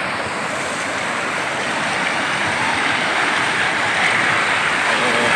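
River rapids rushing over rocks: a steady, dense rush of white water that grows a little louder toward the end.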